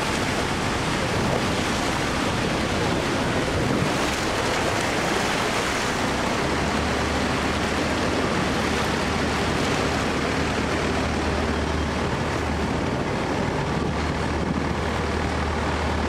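The Rhine Falls rushing: a loud, steady roar of falling water, heard close up from the basin at the foot of the falls. A low steady hum joins the roar about six seconds in.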